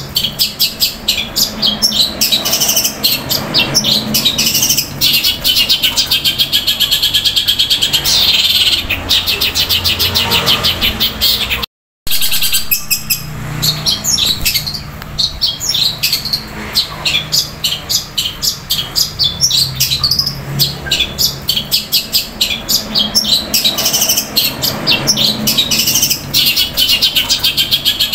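Long-tailed shrike (cendet) singing a loud, fast chattering song of rapid rolls of sharp chirps, imitating tree sparrows squabbling. The sound cuts out for a moment about twelve seconds in.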